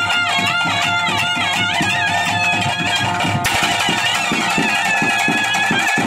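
Live traditional ritual music: a melody instrument plays a winding, ornamented tune with quick pitch turns over fast, steady drumming. About halfway through a brighter, hissy layer joins.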